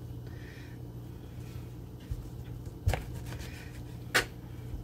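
Kitchen knife cutting through lemon halves on a plastic cutting board, the blade knocking sharply against the board twice, about three seconds in and again near the end, over a low steady hum.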